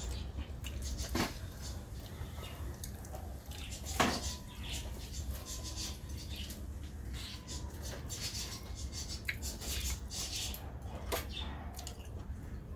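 Eating rice by hand from a brass plate: fingers mixing and scooping rice against the metal, with chewing and wet mouth sounds. Short sharp clicks and knocks throughout, the loudest about four seconds in.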